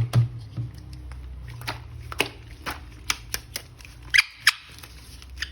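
Small hard plastic toy parts being handled, giving irregular light clicks and taps, with a cluster of sharper ticks about four seconds in.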